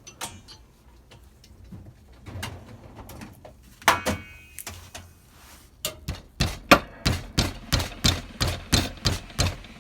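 Hammer striking the crimped copper terminal of a heavy-gauge battery cable to bend it. There is a single sharp blow with a short metallic ring, then a quick run of a dozen or so taps at about three a second.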